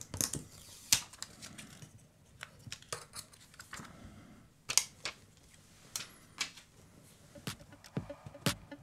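Irregular sharp clicks and light taps, roughly one a second, of small iPhone parts and repair tools being handled and fitted into a new phone housing.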